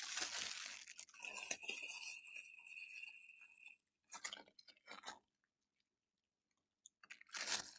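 Faint crinkling and small ticks of a seed glove being handled and turned, with a faint high steady whine for a couple of seconds about a second in and a short louder rustle near the end.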